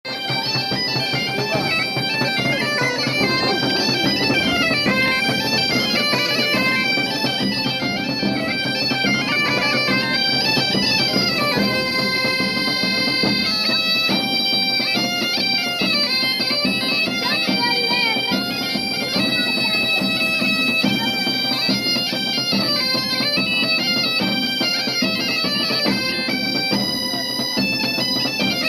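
Bagpipe music: a melody played over a steady held drone, at an even level throughout.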